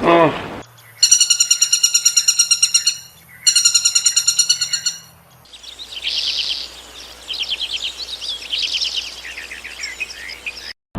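Bird calls: two bursts of rapid, evenly repeated high notes, then a series of high trills.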